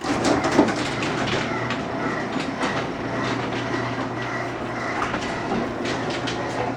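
Two Chamberlain belt-drive garage door openers running together, closing a pair of insulated wooden sectional doors. A steady motor hum and the rumble of the doors travelling along their tracks, with many small clicks from the rollers and hinges; it starts abruptly.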